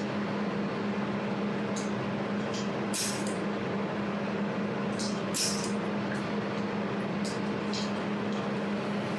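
Jewelry laser welding machine running with a steady hum, with about ten sharp, high ticks at irregular intervals from its laser pulses striking the metal.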